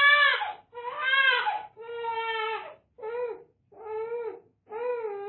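Infant crying in a string of wails, about one a second, each rising and falling in pitch with short breaths between; the later cries are shorter.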